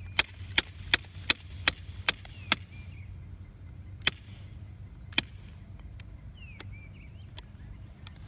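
Tacit golf-hole cup cutter being worked into a putting green, giving a quick run of seven sharp clicks, about three a second, then two single clicks a couple of seconds later.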